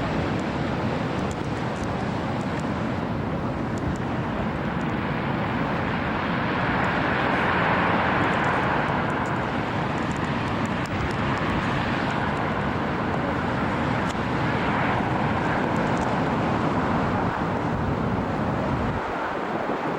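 Storm wind buffeting the microphone: a steady heavy roar with a rushing layer that swells about seven seconds in, and the low rumble drops off abruptly near the end.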